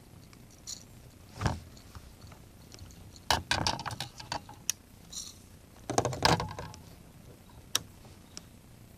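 Scattered knocks and clatters as a freshly caught largemouth bass and fishing gear are handled in a plastic kayak: one sharp knock about a second and a half in, louder clusters around the middle and two-thirds through, and a single click near the end.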